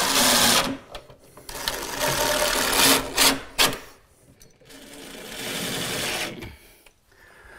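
Cordless drill driving screws into cabinet door hinge hardware: the motor whirs in several short runs, stopping and starting, with a couple of quick blips near the middle and a quieter, longer run later on.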